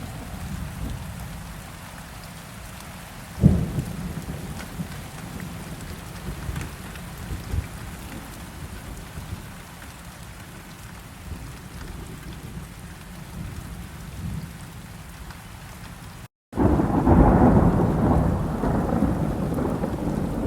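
Steady heavy rain with thunder: a sharp thunderclap about three and a half seconds in, and near the end a loud, long rumble of thunder after the sound cuts out for a moment.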